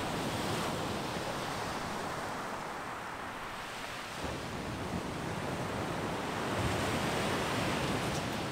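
North Sea surf washing onto the beach: a steady rush of breaking waves that swells a little louder near the end.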